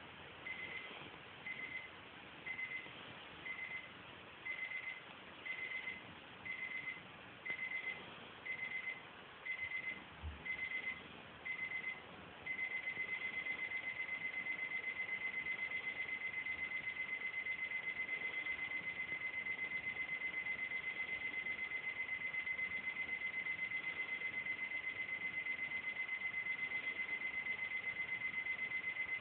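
High-pitched electronic beeping, about once a second, that turns into one continuous steady tone about twelve seconds in.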